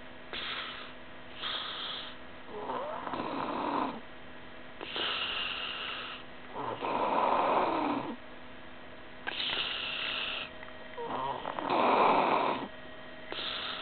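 A sleeping person snoring: three long snores about four seconds apart, the later two loudest, with shorter, hissier breaths between them.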